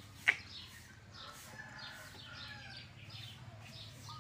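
Chickens clucking and small birds chirping over and over, with one sharp click just after the start.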